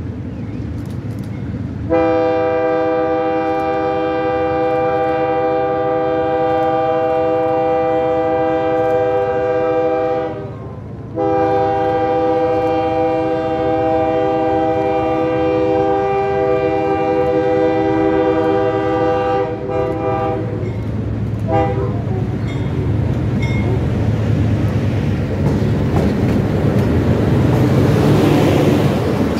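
Diesel freight locomotive's multi-tone air horn sounding two long blasts and then short ones, the grade-crossing warning. The locomotive's engine and wheels then rumble past at close range, growing louder near the end.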